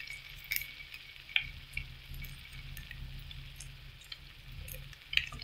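Frying pan of onions and raw ground beef sizzling faintly, with a few scattered small clicks and crackles over a low steady hum.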